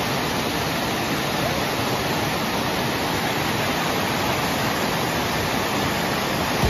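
Water pouring steadily over a low wooden dam and splashing at its foot, a constant rushing sound.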